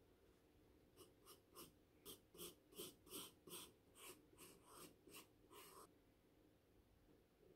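Faint scratching of a pen drawing on sketchbook paper: a quick run of short strokes, about three a second, starting about a second in and stopping about six seconds in.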